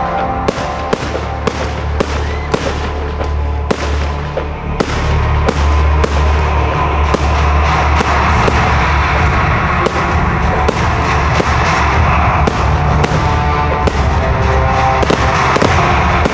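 Aerial fireworks going off in a steady barrage, sharp bangs about twice a second, with music playing alongside.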